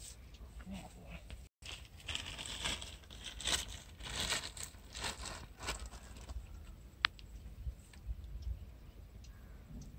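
Irregular rustling and crunching of dry grass and brush, densest from about two to six seconds in, with one sharp click about seven seconds in. A low rumble runs underneath.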